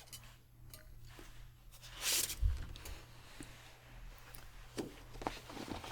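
Quiet handling noises: scattered soft clicks and a brief swish about two seconds in, followed by a low thump, over a faint steady hum.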